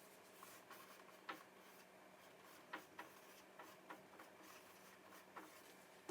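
Near silence: room tone with a faint steady hum and a few faint, scattered small ticks.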